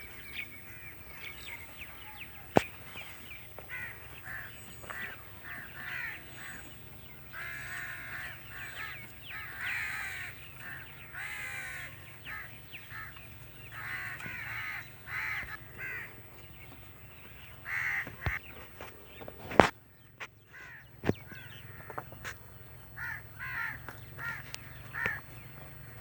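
Crows cawing over and over in short, harsh calls, with a couple of sharp knocks, the loudest about two-thirds of the way through.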